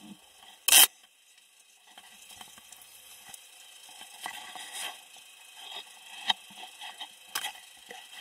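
Handling noise of a 360 camera being moved and repositioned: one loud sharp knock about a second in, then scattered small clicks and rubbing.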